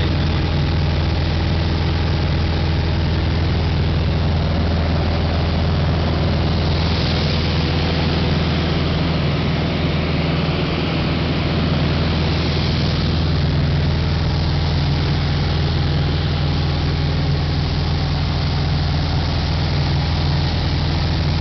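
Light aircraft's piston engine and propeller running steadily in flight, heard inside the cockpit as an even drone.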